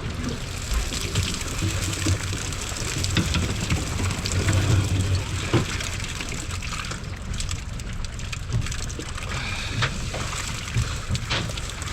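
Water splashing and dripping from a cast net being hauled in, over a steady low rumble.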